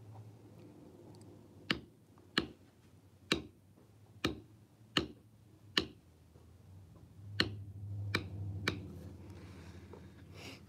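Mallet striking a leather background stamping tool: about nine sharp taps a little under a second apart, with a short pause before the last three, as background texture is stamped into tooling leather.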